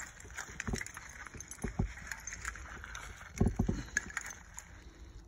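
Scattered clinks, clicks and crunches of broken glass and dump debris being disturbed, in an irregular run with the loudest cluster about three and a half seconds in, over a steady high hiss.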